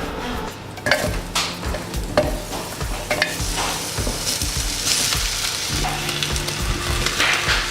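Vegetables sizzling in a frying pan while being stirred, with a few knocks of the utensil against the pan.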